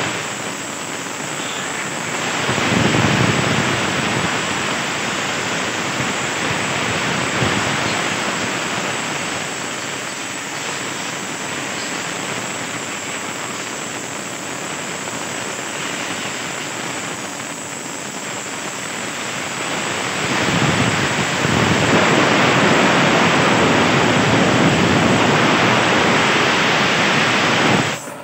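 Compressed-air blow gun hissing steadily as it blasts dust and rust off a car engine, swelling louder a few times as the nozzle moves, then cutting off abruptly.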